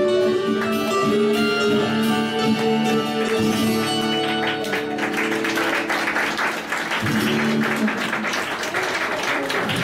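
Two acoustic guitars play the closing chords of a song and let them ring. About halfway through, the audience starts applauding, and the clapping carries on.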